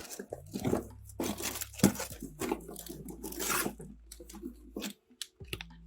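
Rustling, crinkling and clattering as plastic packaging and small tools are handled and rummaged through, a run of irregular crackles and knocks over a low steady hum.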